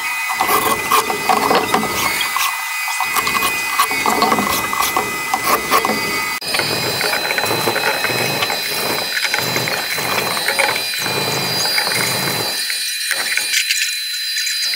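Sanding a wooden board: a continuous abrasive rasp with many small clicks, pulsing with back-and-forth strokes in the middle, over a steady high whine that jumps up in pitch about six seconds in.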